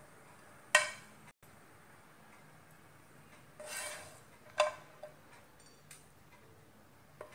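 A spatula clinking against a ceramic plate as poha is served onto it: two sharp clinks, about a second in and about four and a half seconds in, with a brief scrape between them and a few lighter taps after.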